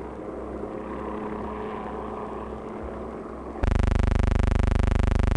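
Rumbling, noisy field ambience with a steady low hum. About three and a half seconds in it is swamped by a very loud, harsh buzz pulsing evenly about twenty times a second, which cuts off abruptly near the end: a fault or noise on the old film soundtrack rather than a sound from the scene.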